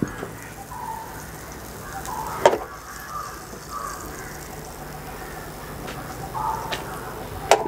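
Butter melting with a faint sizzle in a non-stick frying pan over a gas burner as the pan is tilted. Two sharp knocks, about two and a half seconds in and again near the end, with faint short calls in the background.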